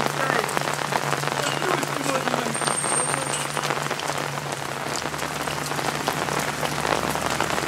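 Steady rain falling, a dense patter of drops, with a steady low hum underneath.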